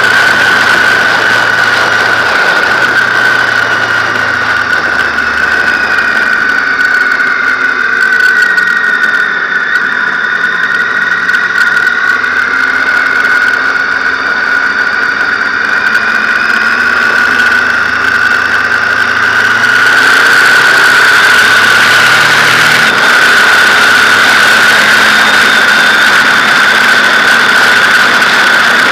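Onboard sound of a BMW R 1200 GS boxer-twin motorcycle riding along: a loud, steady high whistle over the engine and road noise. The engine note steps up and down, and fainter whines glide down and back up partway through.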